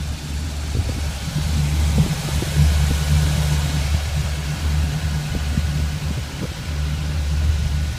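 Boat's sterndrive engine running steadily in gear as a test run of the freshly reassembled outdrive, a low rumble that dips now and then, with the propeller wash churning the water behind the boat.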